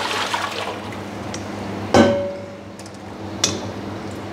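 Soaking water poured out of a steel pot into a sink, splashing and fading away, with one metal clank of the pot that rings briefly about two seconds in.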